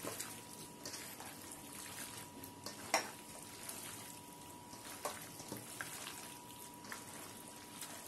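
Wet squelching of hands kneading chicken pieces in a thick yogurt, onion and spice marinade in a stainless steel bowl, with a few sharp clicks against the bowl. A faint steady high tone runs underneath.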